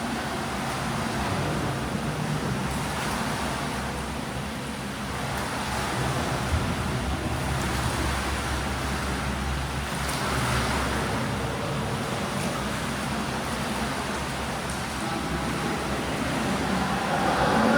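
Steady low rumbling background noise of an indoor swimming pool, with water noise, swelling slightly midway.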